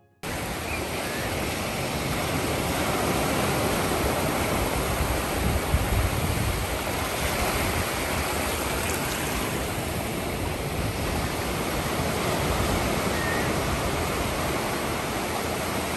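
Ocean surf: waves breaking and washing up the beach as a steady rushing noise that cuts in abruptly.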